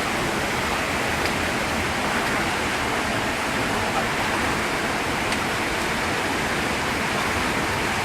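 Rushing water from a waterfall or fast stream: a steady, loud, even roar.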